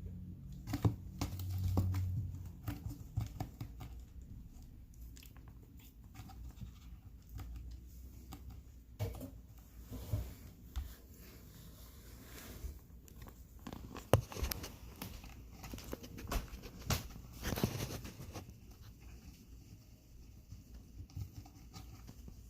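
A domestic cat chewing and tearing at a small bird it is eating: irregular crunches, clicks and tearing sounds, with the sharpest crunch about two thirds of the way in.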